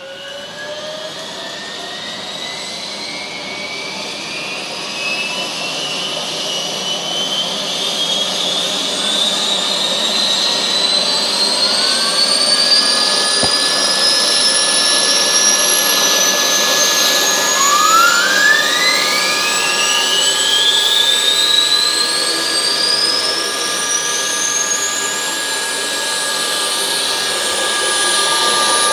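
Electronic sound module playing a recorded UH-1H Huey turbine start-up through a speaker: a turbine whine with several tones climbing steadily in pitch and growing louder, then levelling off. A further whine sweeps up quickly about two-thirds of the way in.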